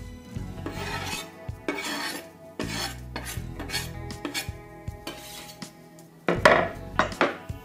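Kitchen knife scraping chopped parsley off a wooden cutting board into a cast-iron pot, in a series of short scraping strokes. The loudest scrapes and knocks come about six to seven seconds in. Background music plays underneath.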